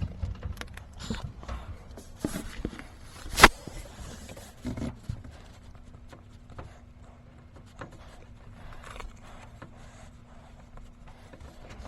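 Scraping and rustling of thermostat wire being pulled through the top of a wall cavity, with scattered clicks, one sharp knock about three and a half seconds in and a couple of dull thumps shortly after. The handling then turns quieter over a faint steady hum.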